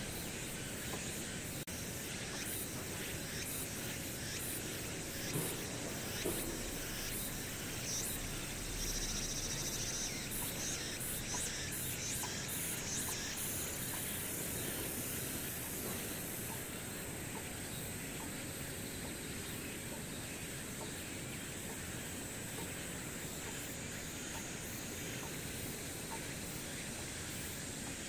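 Outdoor ambience: a steady background hiss with insects chirping high up, their quick chirps busiest in the first half.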